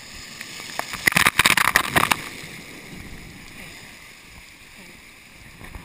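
Water from an overhead spray splashing down onto the water and the inflatable tubes: a loud patter of splashing about a second in that lasts about a second, then a steady wash of moving water.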